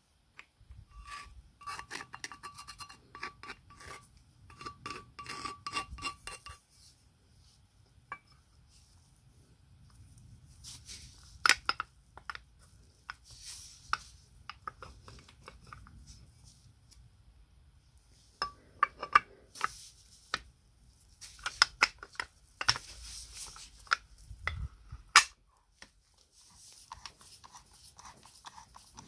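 Hand work on small hard parts: rubbing and scraping with a faint ringing tone during the first few seconds, then scattered sharp clicks and taps, the loudest about a third of the way in and again near the end.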